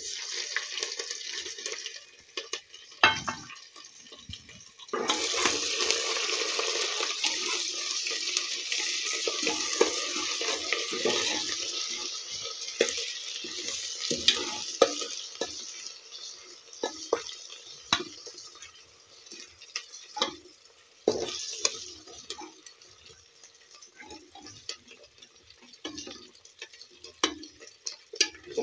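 Onions and garlic-ginger paste frying in hot ghee in a pressure cooker pot, sizzling, while a steel ladle stirs and clinks against the pot. The sizzle swells about five seconds in, stays strong for several seconds, then dies down to a lighter fry with the clinks of the ladle.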